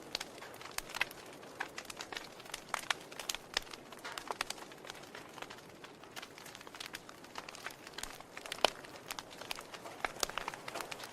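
Wood fire crackling: irregular sharp pops and snaps over a soft steady hiss, with one louder pop about three-quarters of the way through.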